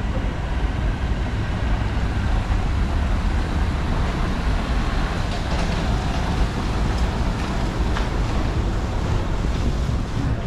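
City street traffic on a wet road: a heavy sewer-cleaning tanker truck's engine running close by as cars pass. It makes a steady deep rumble with tyre hiss over it.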